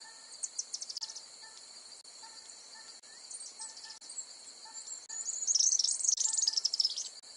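Insects chirring steadily with birds chirping over them; the birdsong grows louder and busier from a little past the middle to near the end.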